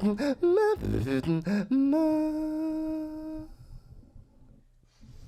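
A beatboxer's solo voice humming a quick run of short, wavering notes, then one held note that fades out about three and a half seconds in, leaving near silence.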